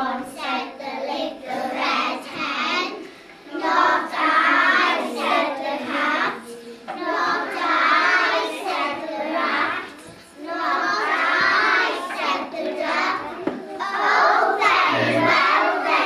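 A class of young children chanting a story in unison, in phrases of two or three seconds with short breaks between.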